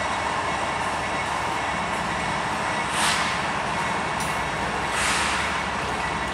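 CSX freight train rolling past on the rails: steady wheel and rail noise, with two brief hissing surges about three and five seconds in.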